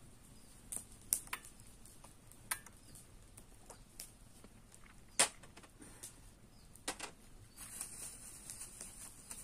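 Scattered sharp clicks and knocks of items being handled and set down, the loudest about five seconds in, then the crinkling of a plastic bag being handled near the end.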